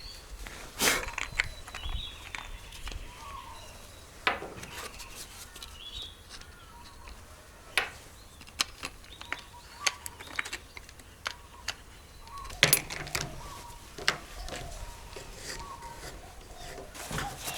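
Scattered light clicks and knocks of small hard objects being handled, with birds chirping faintly in the background.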